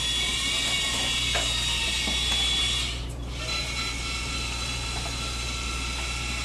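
Panoramic dental X-ray unit with its arm circling the head during a scan: a steady mechanical whir with a low hum and a thin high tone, with a few faint clicks, shifting slightly about three seconds in.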